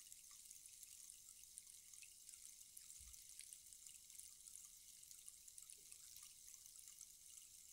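Rainstick sounding softly: a faint, steady patter of many tiny clicks like light rain, with a faint low bump about three seconds in.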